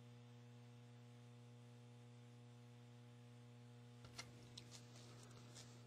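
Near silence: a low steady electrical hum on the audio feed, with a few faint clicks about four seconds in.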